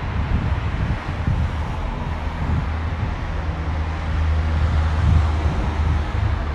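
Low rumble of a running vehicle, with a steady low hum rising out of it about two seconds in and fading near the end.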